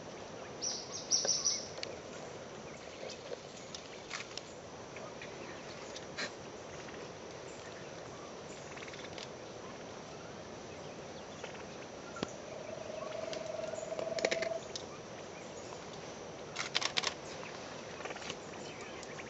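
Forest ambience: a steady hiss with scattered short clicks and rustles, a quick run of high chirps about a second in, and a steady mid-pitched whistle held for about two seconds past the middle.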